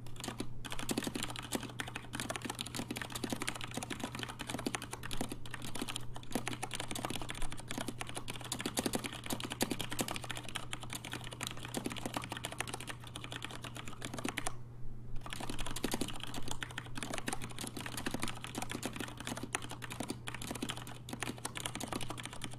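Continuous fast typing on a Keycool 84 75% mechanical keyboard with Cherry MX Black linear switches: a dense clatter of keystrokes, with a brief pause about two-thirds of the way through. A steady low hum runs underneath.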